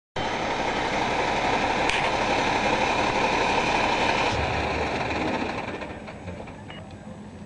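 FDNY ladder fire truck rolling slowly past close by, a steady heavy noise of its engine and tyres, with a brief click about two seconds in; the noise dies down over the last two seconds as it moves on.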